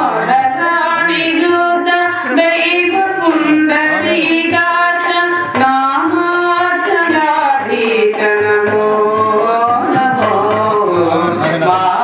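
A man sings a devotional song in Carnatic style into a microphone, holding long notes with sliding ornaments, over hand-drum accompaniment.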